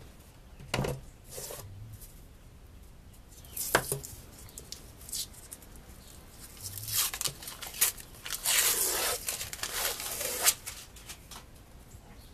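Scattered handling noises: a few sharp knocks and clicks, with rustling or scraping in several stretches near the middle and later on.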